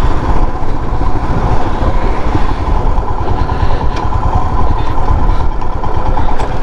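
Royal Enfield Himalayan motorcycle being ridden at road speed: the engine running steadily under loud, fluttering wind rush on the action camera's microphone.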